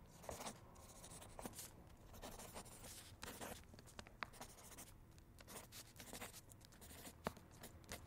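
Pen drawing on paper: faint, short, irregular scratching strokes with an occasional sharper tick.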